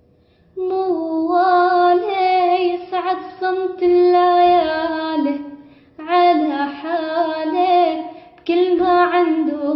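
A woman's voice singing an Arabic song unaccompanied, in three phrases with short breaths between them, the melody bending and wavering through decorated turns.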